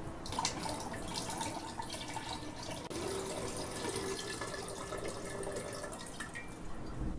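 Water poured from a glass pitcher into a tall glass vase, splashing steadily into the glass as it fills, then thinning and stopping about six seconds in.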